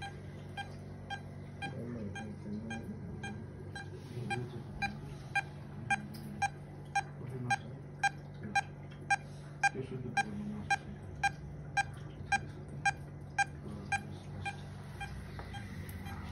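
Medical monitor beeping a short pulse tone about twice a second, a steady rhythm in time with an anaesthetised dog's heartbeat; the beeps grow louder toward the middle and fade near the end.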